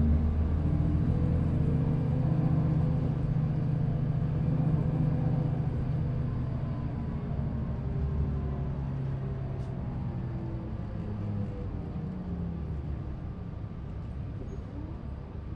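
Cummins ISL diesel engine and ZF Ecomat II transmission of a 2005 New Flyer D40LF transit bus running. A steady low drone with faint tones gliding up and down above it eases off gradually and drops lower about three-quarters of the way through.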